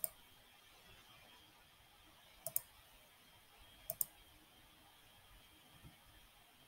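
Two quick double clicks at a computer, about a second and a half apart, with near silence between them.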